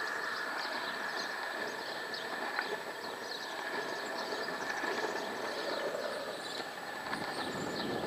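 Longboard wheels rolling fast over asphalt: a steady rumbling roll with a constant high tone running through it.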